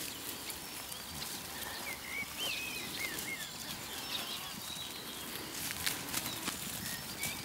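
Footfalls of young alpacas galloping over grass, as scattered soft thuds and clicks that come thickest and loudest about six seconds in as the crias run close by. Birds chirp in the background.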